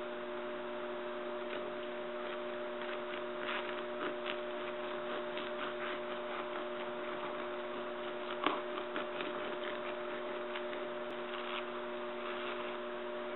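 Steady electrical hum, with faint scattered clicks as a sharp kitchen knife cuts down through a jackfruit's knobbly rind; the sharpest click comes a little past halfway.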